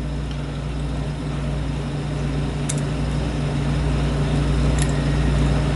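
Steady low machine hum with an even hiss, with two faint small clicks from the lock pick about two and three-quarter and five seconds in.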